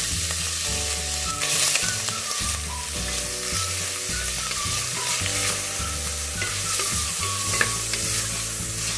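Beef chunks sizzling and frying in hot perilla oil in a stainless steel pot, stirred with a wooden spatula, with a steady hiss throughout. Faint background music plays underneath.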